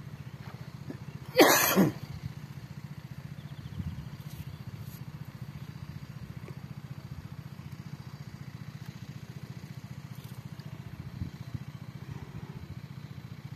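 Irrigation water pump's engine running with a steady low drone. About a second and a half in, a person's voice gives one short, loud burst.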